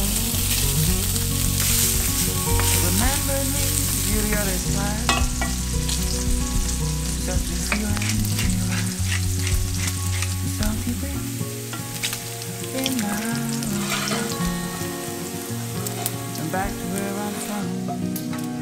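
Diced pancetta frying in a stainless steel pan: a steady sizzle, strongest in the first few seconds, with occasional clinks and scrapes as it is stirred.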